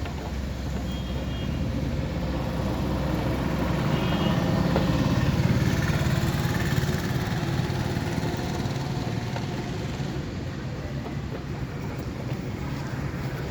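Vehicle engine and road noise that swells to its loudest about five or six seconds in and then fades, like a heavy vehicle passing.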